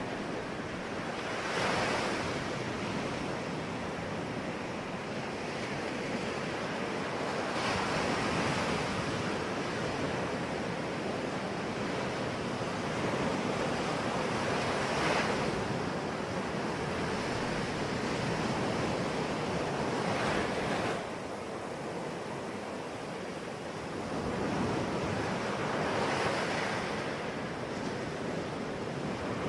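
Ocean waves breaking on the shore, a steady wash of surf with a wave crashing every five to six seconds.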